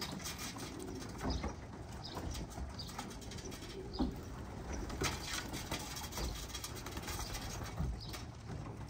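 Young racing pigeons moving about in a loft's wire trap and aviary: scattered light taps, clicks and scuffs, with a few short high chirps.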